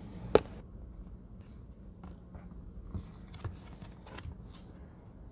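A sharp click about half a second in, then scattered faint crackles and taps as a plastic blister-pack toy card is handled, over a low steady hum inside a car.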